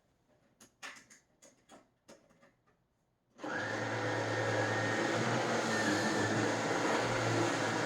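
A few faint clicks, then about three and a half seconds in a Miele Solaris canister vacuum switches on and runs steadily on its reduced 700-watt setting: a low hum with a faint high whine.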